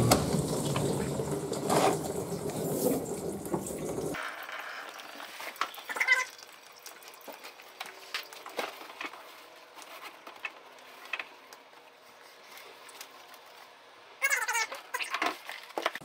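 Frigidaire dishwasher on its drain cycle: water rushes and sloshes for about four seconds, then cuts off suddenly. Faint clicks and light knocks follow, and a brief high-pitched squeak comes near the end.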